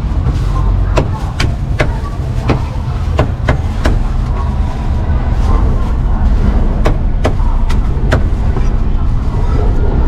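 A cleaver chopping meat: sharp single knocks at an uneven pace of two or three a second, with a pause of a few seconds in the middle, over a steady rumble of street traffic.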